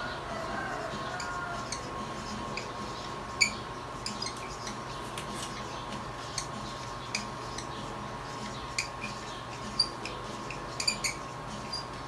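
Marker pen writing on a plastic-covered paper chart: scattered light taps and short squeaks of the tip, with occasional sharper clicks of the markers held in the other hand. A faint steady hum runs underneath.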